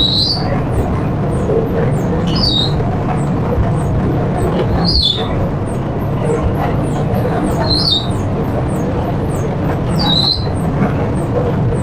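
Electric flour-mixing machine running with a loud, steady drone, and a short high squeak repeating about every two and a half seconds.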